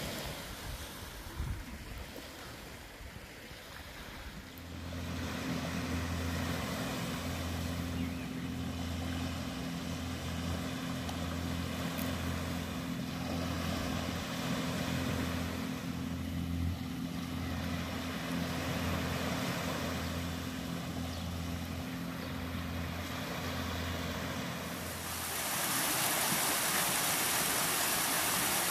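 Soft wash of small waves, then a steady low engine hum whose deepest note pulses about once a second. Near the end the hum stops and the even rush of a small waterfall cascading over rocks takes over.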